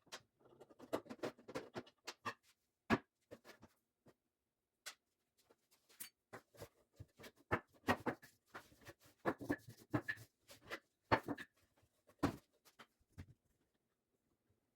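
Irregular small knocks, clicks and scrapes of objects being handled, a few sharper taps standing out among them.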